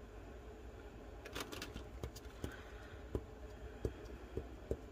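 Alcohol marker's felt tip dabbed repeatedly on a paper towel to blot it, because the pink isn't laying down well: a few small clicks about a second in, then a string of soft separate taps about every half second.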